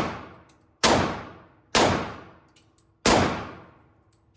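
Glock 22 Gen 4 .40 S&W pistol fired three times, about a second apart, with a slightly longer pause before the last shot. Each sharp report rings out in a long fading tail.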